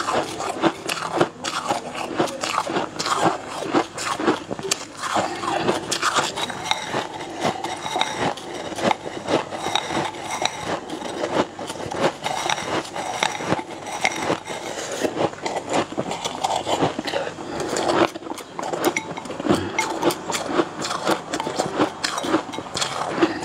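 Close-miked eating from a bowl with chopsticks: continuous wet slurping, chewing and quick mouth clicks and smacks.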